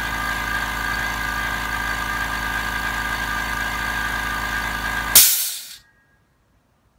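Anest Iwata FX7601 'PIXIE' oil-free air compressor running with a steady hum and a high whine. A little over five seconds in the motor stops suddenly and a sharp burst of hiss follows, fading within about half a second: the unloader valve venting air as the compressor shuts off.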